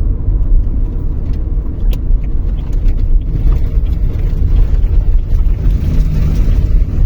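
Car driving on a freshly gritted road surface: a loud, steady low rumble of tyres and loose grit under the underbody, likened to sandpaper scraping beneath the car, with a few sharp ticks.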